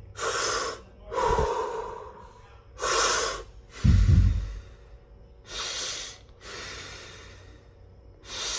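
A man doing a patterned breathing exercise, breathing audibly in and out through his mouth and nose in turn: about seven short, forceful breaths, roughly a second apart.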